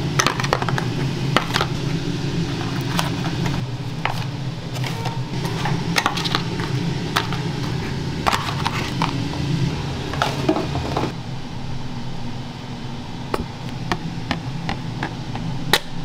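Metal takoyaki picks clicking and scraping against the takoyaki pan as cooked balls are flicked out and dropped into a paper box, in many short irregular taps over a steady low hum.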